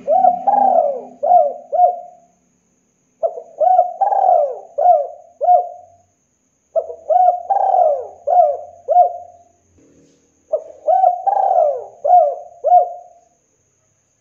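Spotted dove (tekukur) cooing: four repeated phrases, each a run of several short coos lasting two to three seconds, with a pause of about a second between phrases.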